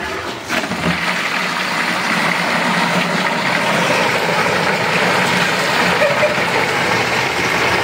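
Water from a submersible pump's hose gushing steadily into a plastic jug, starting about a second in.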